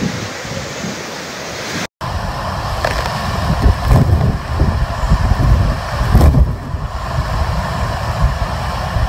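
Hurricane-force wind buffeting the microphone: a steady rushing noise with heavy low gusts. It drops out for a moment about two seconds in, then comes back louder and gustier.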